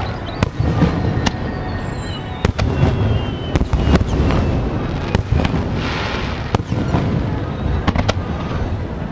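Large aerial fireworks bursting in quick succession: sharp bangs over a continuous low rumble. Falling whistles sound in the first few seconds, and a crackling hiss comes about six seconds in.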